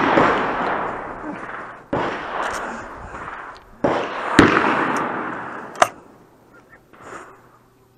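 Three shotgun shots at a trap range, about two seconds apart, each trailing off in a long echo, followed by a sharp crack and a click.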